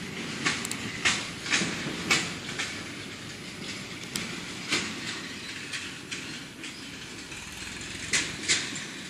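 Handling noise of a phone held by hand: a series of sharp knocks and rubs against the phone, five about half a second apart at first, one near the middle and two close together near the end, over a steady background hiss.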